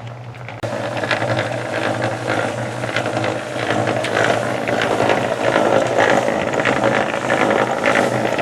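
Dense mechanical clattering and rattling that starts abruptly about half a second in and keeps going, over a steady low hum.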